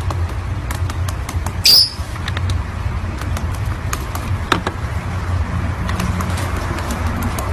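Lovebird's feet tapping and clicking on laptop keys as it steps about the keyboard, with one short, sharp, high chirp about two seconds in, over a low steady hum.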